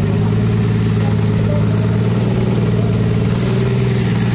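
Fishing boat's engine running steadily: a low, even drone with no change in speed.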